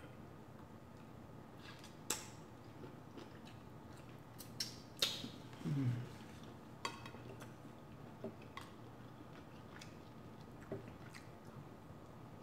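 Close-miked mouth sounds of someone eating sautéed shrimp cooked with the shells on: soft chewing with scattered sharp crunches and clicks. A short low hum comes about six seconds in.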